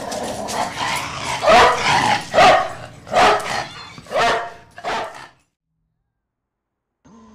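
Canine vocalising, a series of about five loud barks and yips in the first five seconds, then falling silent. Near the end a faint steady hum starts.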